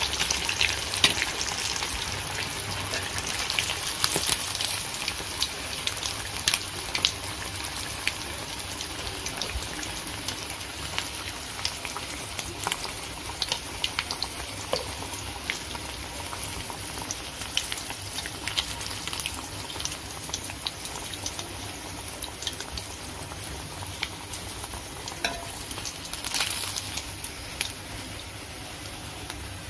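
Fish pieces frying in shallow oil in a steel pan, sizzling with many small crackling pops. The sizzle slowly dies down with the flame turned off and the fish done.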